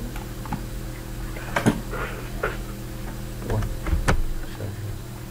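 A few sharp clicks and knocks from working a computer mouse at a desk, the loudest about one and a half seconds in and a cluster near four seconds. A steady low hum runs underneath.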